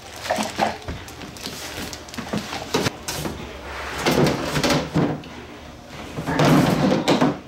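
Handling noise from unpacking a toy ride-on roller coaster: scattered knocks of large plastic parts against the cardboard box, then two longer bouts of scraping and rustling about four and six seconds in.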